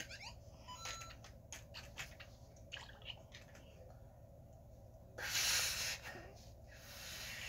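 Small plastic clicks and knocks of Lego pieces and figures being picked up and set down on the course. About five seconds in there is a louder hissing rustle lasting about a second, and a fainter one comes near the end.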